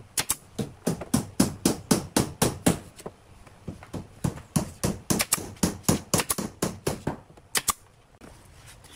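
Pneumatic nail gun firing nails into a wooden headboard, a rapid run of sharp shots about three to four a second, with a short pause about three seconds in, ending near the end.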